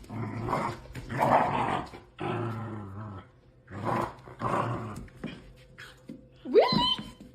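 A dog growling in several rough bouts, then a short yelp that rises sharply in pitch near the end.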